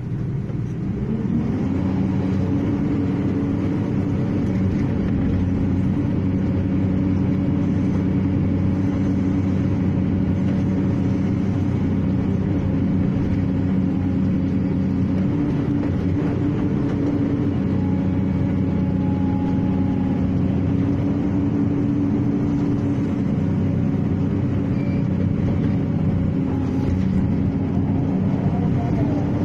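Excavator's diesel engine running steadily under throttle, its pitch rising over the first second or so, then holding even.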